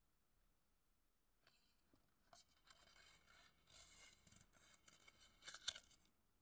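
Faint rustling and a few small clicks of a folded paper leaflet being handled and unfolded, starting about two seconds in.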